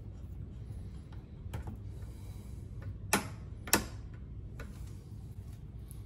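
Two sharp clicks about half a second apart, a little past the middle, from the toggle-switch hardware being handled and fitted by hand, with a few fainter ticks and a low steady hum underneath.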